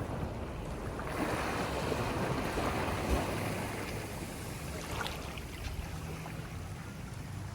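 Ocean surf on the beach: a wave washes in about a second in, swells, and fades away over the next few seconds, over a steady low rumble of wind on the microphone.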